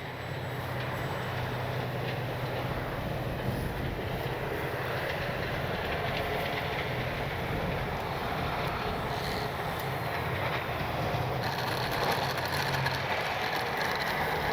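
Strong wind rushing and buffeting over the microphone, with the faint steady whine of the RC plane's electric motor under it, a little higher and clearer in the second half.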